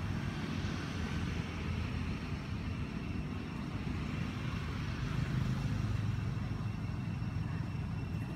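Steady low rumble of motor traffic running.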